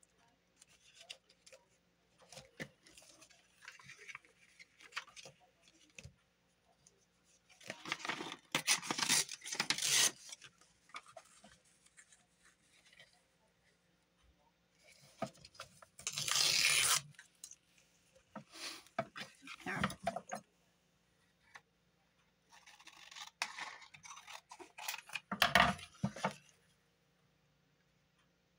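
Paper and card packaging being handled and torn: several short bursts of rustling and ripping, the loudest near the end.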